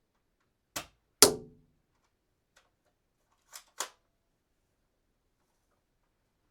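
Dart gun shot sound effect: a light click, then a sharp shot with a brief low ring just after a second in. Two quick mechanical clicks follow about two and a half seconds later.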